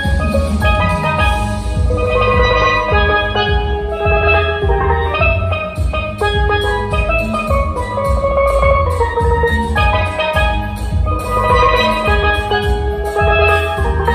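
Lead steelpan played with sticks in quick melodic runs of ringing metallic notes, over a backing track with a heavy bass line and drums.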